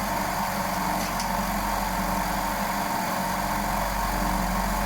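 Air compressor running with a steady mechanical hum. The hum is even throughout, with a low drone underneath.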